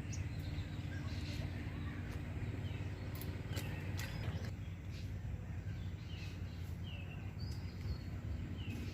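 Steady low rumble with small birds chirping, short falling chirps every second or two, and a few faint clicks.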